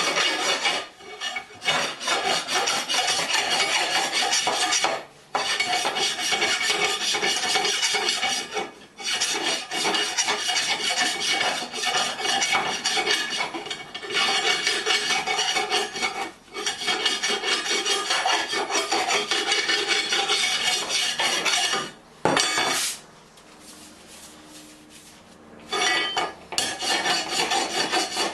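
A grinder abrading the steel handle rod, running continuously with a few brief breaks and a longer pause of about three seconds near the end.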